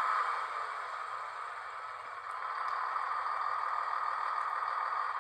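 A sound effect from the onboard DCC sound decoder of an Auscision HO scale V/Line N class locomotive model, played through its small speaker: a steady rushing noise that dips, swells again and drops off near the end.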